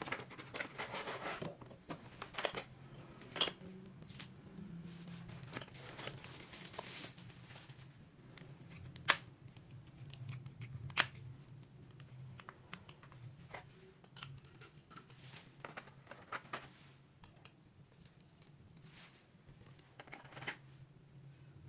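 Packaging being handled and opened: rustling, tearing and scraping with scattered clicks and taps, including two sharp clicks about nine and eleven seconds in, over a low steady hum.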